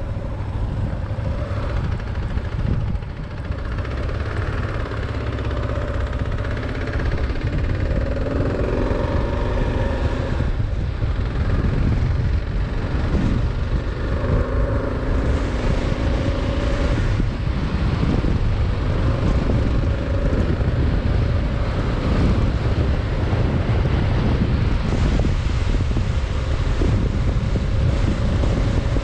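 Kawasaki KLR 650 single-cylinder engine pulling away and accelerating through the gears. The engine note climbs and drops several times in the first half, then holds steady at cruising speed, under heavy wind buffeting on the microphone.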